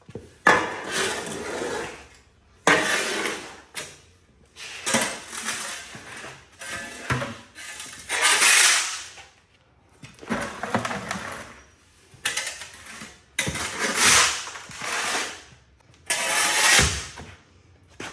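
Shovel blade scraping across a concrete floor, scooping up worm castings in repeated strokes, about one every second or two.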